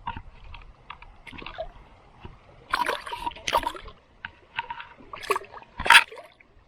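Water splashing and sloshing at the side of a kayak in irregular bursts, the loudest near the end, as a hooked smallmouth bass is brought in.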